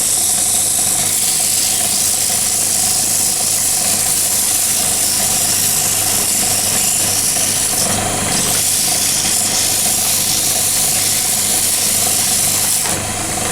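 Wood lathe motor running steadily with a constant hum, while sandpaper is held against the spinning wooden knife handle, giving a steady high hiss of sanding.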